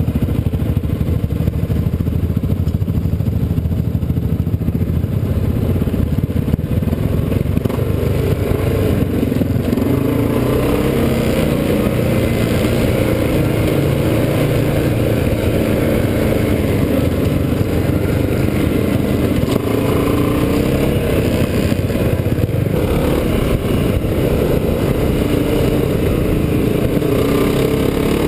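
ATV (quad) engine running, heard from onboard the machine as it rides a rough dirt trail, its note rising and falling with the throttle.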